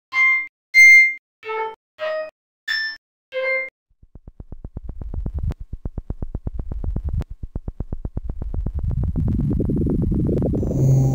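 Electronic soundtrack effects: six short pitched blips of changing pitch, then after a brief gap a fast stream of clicks that thickens into a swelling, buzzing noise growing louder toward the end.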